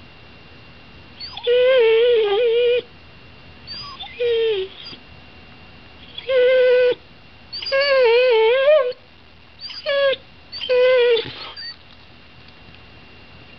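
Whippet whining in a string of high-pitched, wavering whines, six or so, each up to about a second and a half long with short pauses between.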